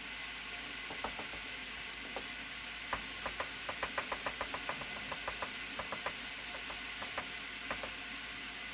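Quick light clicks and taps, densest between about three and six seconds in, over a steady hiss: granular shot buffer being added to a shotgun shell loaded with buckshot and the shell handled to settle it.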